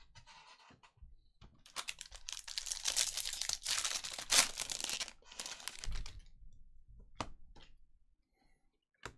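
A trading-card pack's wrapper being torn open and crinkled for a few seconds, followed by two light clicks near the end.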